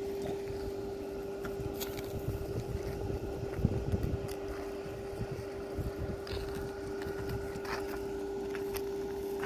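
A steady mechanical hum held at one pitch, with wind rumbling on the microphone and gusting about four seconds in.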